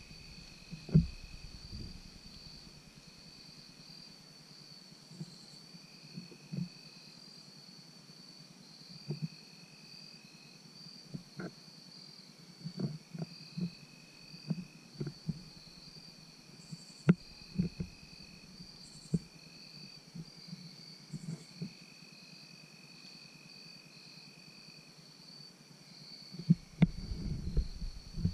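Evening insects singing: a steady, finely pulsing high trill, with a second, lower insect song coming and going in stretches of a few seconds. Scattered small knocks sound throughout, and a louder stretch of low noise and knocks comes near the end.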